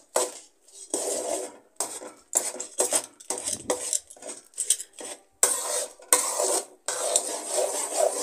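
Metal spatula scraping and stirring around a metal kadai, working coarsely ground chana dal into hot jaggery syrup. It comes in repeated rough strokes, about one or two a second.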